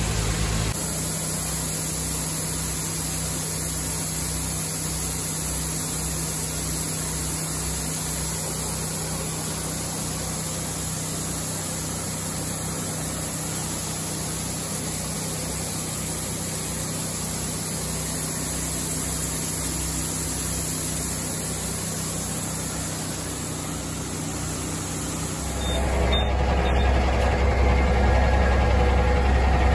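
A grain auger running with its engine throbbing in a steady low beat as it pours cleaned seed peas into a grain truck's trailer. About 25 seconds in, this gives way to a louder, deeper steady rumble of a heavy diesel truck idling.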